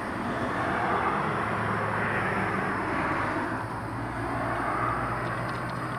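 Traffic on a busy road: a steady rush of passing vehicles that swells and fades as cars go by, over a low steady hum.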